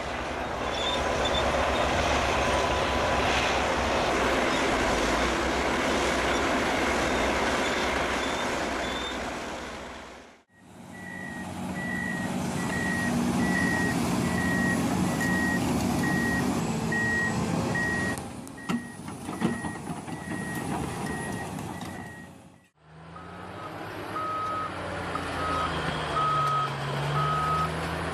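Heavy machinery engines running with reversing alarms beeping about once a second, in three short clips split by brief fades; the alarm is pitched differently in each clip. A few sharp knocks come during the middle clip.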